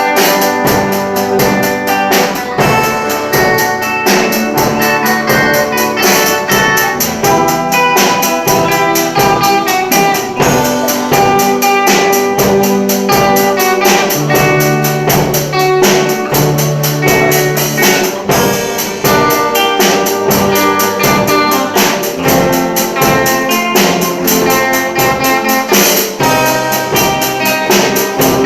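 A small band playing a piece of music, with a steady drum beat and a bass line.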